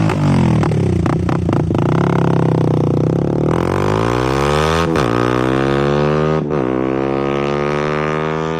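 Voge 125R's single-cylinder 125 cc engine through a replica Akrapovic exhaust, revving hard: the revs climb, drop sharply about five seconds in and again at about six and a half seconds, then climb again.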